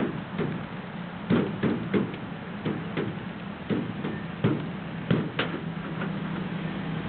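Irregular knocks and clacks, roughly two or three a second, from the pigeon transporter's crates, over a steady low engine hum that grows louder near the end.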